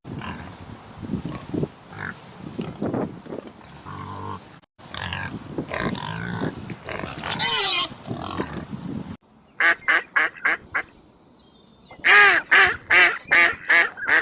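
Animal calls from several short clips in a row. First come low grunting sounds and a rising call. Then two quick runs of about six short, loud, harsh calls each, the second run the loudest.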